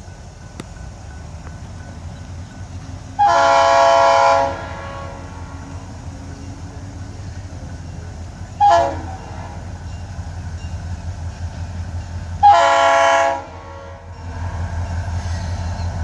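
Florida East Coast GP40-2 diesel locomotive sounding its air horn on approach: a long blast, a short one, then another long one. Under the horn, the train's low rumble grows louder as it nears.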